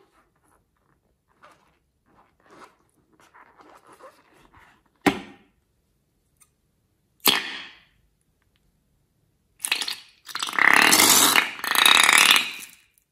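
Slime being squeezed out through the neck of a rubber balloon into a bowl: faint squelches, two sharp snaps around five and seven seconds in, then loud, long sputtering farting noises as slime and air are forced out near the end.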